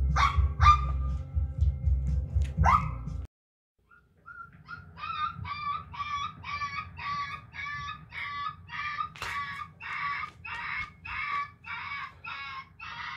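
A small dog yipping, sharp yelps over a low rumble, for about three seconds. After a short pause comes a puppy crying, high whimpering cries repeated about twice a second.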